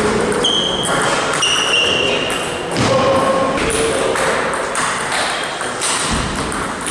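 Table tennis balls clicking off rubber paddles and the table in a rally, with more ball knocks from a neighbouring table, and a few short high squeaks in the first three seconds.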